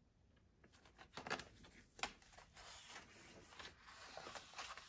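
Pages of a coloring book being turned by hand: faint paper rustling, with a couple of sharp page flicks about a second and two seconds in.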